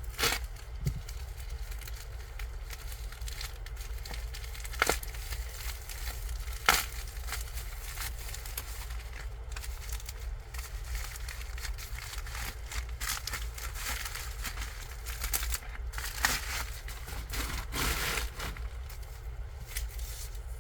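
Packaging crinkling and tearing as a pack of comics is opened, an irregular rustle with a few sharper snaps and clicks.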